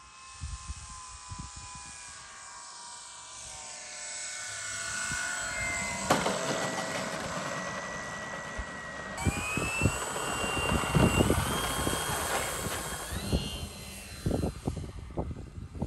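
Electric motor and propeller of a 3D-printed RC WACO biplane: the whine falls as it throttles back to land and rolls out on the runway, then from about nine seconds in rises in steps as the throttle opens for takeoff. Irregular low rumbling and thumps run underneath.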